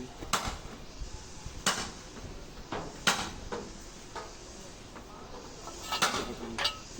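Sharp metal-on-metal clanks from work on a Cat excavator's steel track link and shoes, about seven of them at uneven intervals, with the strongest ones a little after 1.5 s, at about 3 s and at about 6 s.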